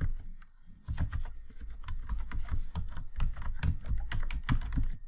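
Fast typing on a computer keyboard: a quick, uneven run of key clicks, with a brief lull just after the start.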